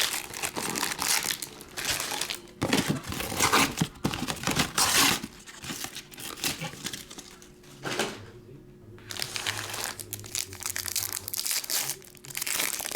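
Crinkling and tearing of trading-card pack wrappers as packs are ripped open, in repeated bursts, loudest about three to five seconds in.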